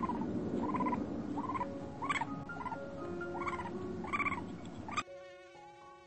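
A run of short, repeated animal calls, about one every 0.7 seconds, over soft background music; about five seconds in they stop abruptly and a thin, wavering insect whine takes over with the music.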